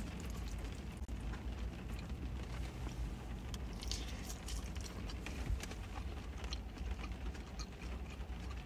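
Quiet eating sounds: a plastic fork scraping and tapping in a takeout burrito bowl, and chewing, heard as scattered faint clicks over a steady low hum inside a car.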